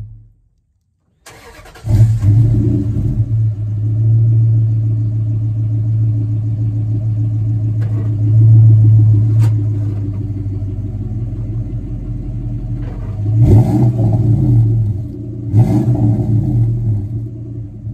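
2004 Dodge Ram Rumble Bee's 5.7-litre Hemi V8, heard at the exhaust tip, cranking briefly and catching about two seconds in, then idling steadily. Near the end the throttle is blipped twice, the revs rising and falling each time.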